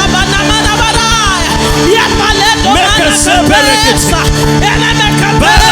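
Church worship music: steady held keyboard chords over a fast drum beat, with many voices raised over it.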